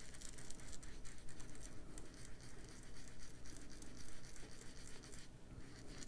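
Round foam ink blending tool rubbed over paper and the edges of sticky notes, a faint, continuous scratchy rubbing.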